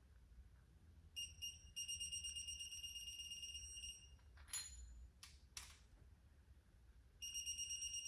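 A torque wrench's electronic beeper sounding a steady high tone as a cylinder head bolt is pulled up to the 70 set torque: two short beeps, then a tone held about three seconds. A few sharp clicks of the wrench's ratchet follow in the middle, and another held beep comes near the end as the next bolt reaches torque.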